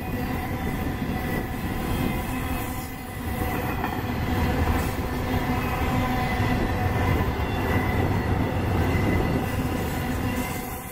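Freight cars of an intermodal train, double-stack container cars and trailer-carrying spine cars, rolling past on the rails with a steady, loud rumble of wheels on track. A thin, steady high-pitched tone runs through it.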